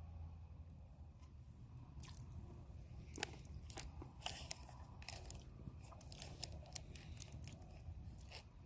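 A person eating a rehydrated trail meal: chewing, with a run of short sharp clicks and crunches through the middle.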